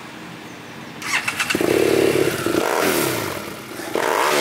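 Motorcycle engine revved hard while standing: the revs climb about a second in, are held high for about a second, then fall away, and climb again near the end.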